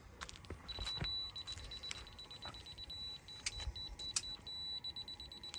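Laser receiver for a rotary construction laser beeping: a high electronic tone comes in about a second in and alternates between a held tone and rapid beeping as the detector picks up the beam, with a few sharp clicks of handling.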